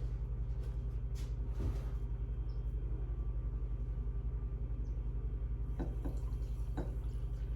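A steady low hum pulsing quickly and evenly, about eight or nine times a second, with a few faint clicks.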